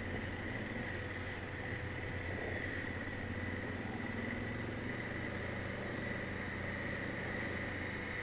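A 2019 Honda Africa Twin's parallel-twin engine running steadily while the bike rides along, with little change in pitch.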